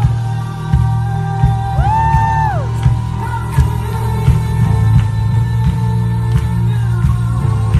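Worship music playing loud: sustained keyboard-like tones over a heavy bass and a steady beat, with a voice holding a note that rises and then falls away about two seconds in.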